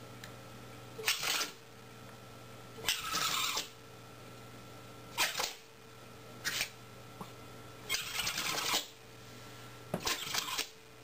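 Jack Russell-type terrier snorting hard with its nose against the carpet: six short, sharp noisy bursts, some of them a quick run of snorts, about every one and a half to two seconds.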